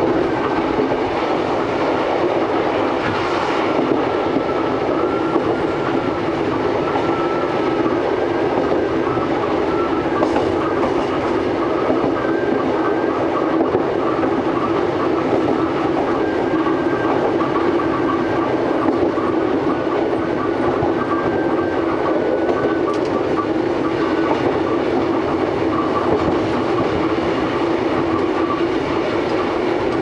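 Old Kotoden electric railcar running steadily along the line, heard from inside the cab: the rumble and clatter of the wheels on the track, with a faint high whine.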